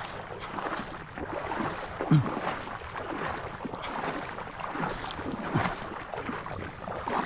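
Water splashing and sloshing in irregular strokes over a steady hiss, with one louder splash about two seconds in.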